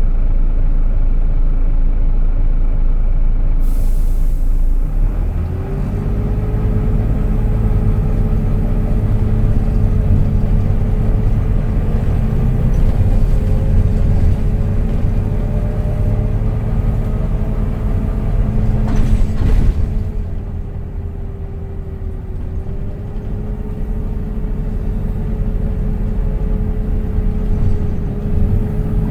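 Volvo B9TL double-decker bus under way, heard from on board: low engine rumble with a steady high whine, the vacuum-cleaner-like 'Hoover' whine these buses are known for, that sets in about five seconds in, holds with a slight dip later, and dies away at the end. A short burst of hiss about two-thirds through.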